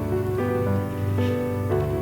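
Background instrumental music: sustained notes changing every half second or so.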